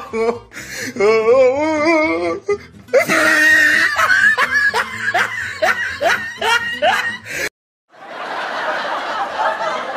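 A comic laughter sound effect: first a warbling laugh, then a run of short falling 'ha' laughs, about two or three a second. It cuts off abruptly and gives way to a steady noisy rustle.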